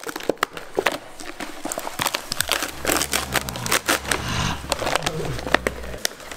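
Peel ply being pulled off a cured carbon and aramid fiber layup: a rapid, irregular run of crackling, tearing snaps as the fabric releases from the hardened resin.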